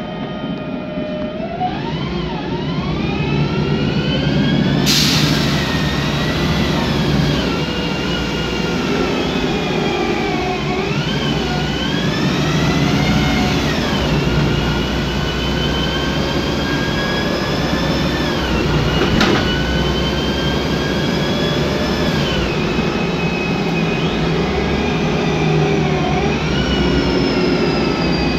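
Noisy whine of the Voith DIWA 864.3 automatic gearbox of a MAN Lion's Classic city bus, heard inside the cabin over the hum of its MAN E2876 CNG engine. The whine climbs in pitch as the bus picks up speed and drops back several times with gear changes and slowing. There is a short burst of hiss about five seconds in.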